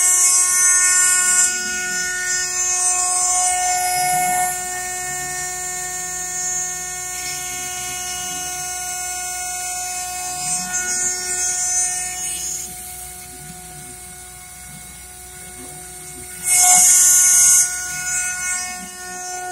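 CNC mill cutting a 3/4-inch-thick, 12-inch metal disk with an end mill under coolant: a steady, kinda loud whine with tones sweeping up and down beneath it. A louder, hissing screech of the cut comes right at the start and again briefly about sixteen seconds in.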